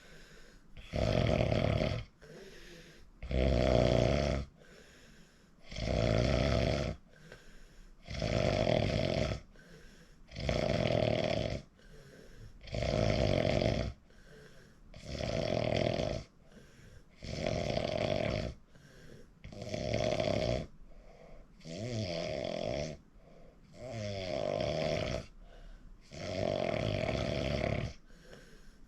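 A sleeping person snoring in a steady rhythm: about a dozen snores, each lasting about a second, one every two to two and a half seconds.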